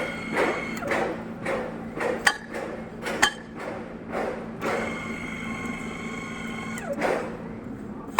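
Electric pipe threading machine running with a steady motor hum, over irregular knocks and metallic clicks about every half second.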